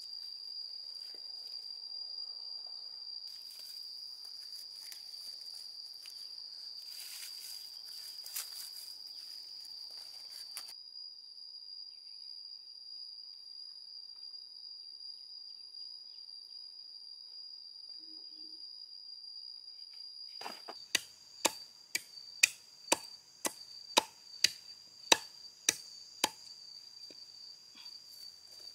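Machete chopping into a wooden pole: about a dozen sharp strikes, roughly two a second, in the last third. A steady high insect drone runs throughout, with light rustling of bark strips in the first third.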